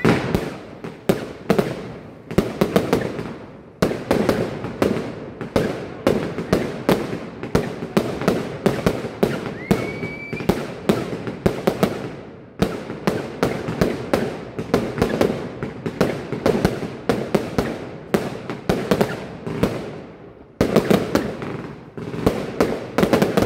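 Fireworks display: aerial shells launching and bursting in quick succession, several sharp bangs a second, with a short rising whistle about ten seconds in.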